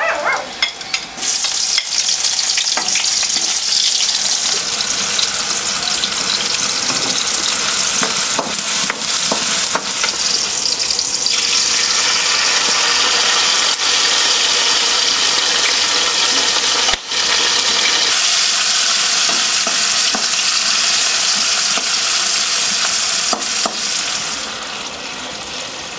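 Food frying in a wok over a wood fire: a steady, loud sizzle, with a metal spatula stirring and scraping in the pan. The sizzle quietens a couple of seconds before the end.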